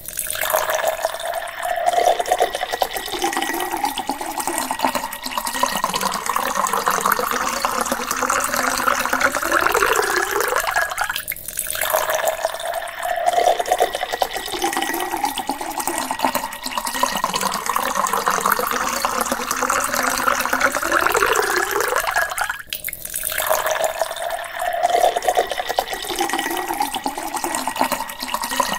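Water poured in a steady stream into a faux crystal drinking glass. The pitch of the pour rises as the glass fills. It breaks off about 11 s and 23 s in and starts again low, giving three pours in a row.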